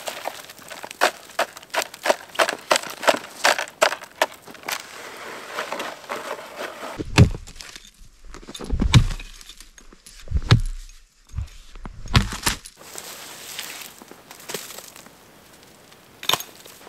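Snow shovel working a snow pile: a quick run of crisp crunches and scrapes, about two or three a second. About halfway in come a few heavy low thumps with cracking, then scattered sharp cracks as dead branches are broken.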